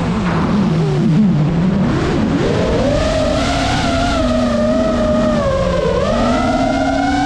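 Geprc Mark 5 FPV quadcopter's brushless motors and propellers whining, the pitch sinking over the first two seconds, climbing sharply at about two and a half seconds, dipping again near six seconds and rising back as the throttle changes.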